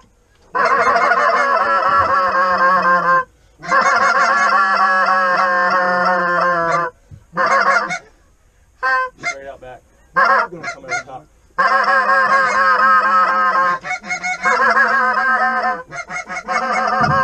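Goose honking and clucking, many calls overlapping in rapid runs of a few seconds each, broken by short pauses and a stretch of short, choppy notes around the middle.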